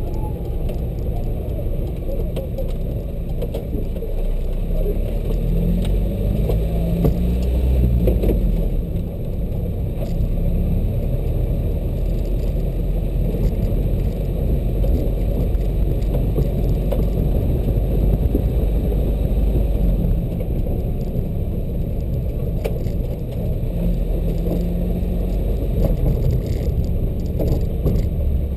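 Open-top sports car driving, heard from inside the open cabin: a steady low rumble of engine and road noise.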